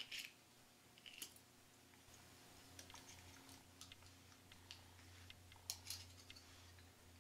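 Faint scattered clicks and taps of a titanium folding spoon being handled and folded by its locking lever, over a low steady hum.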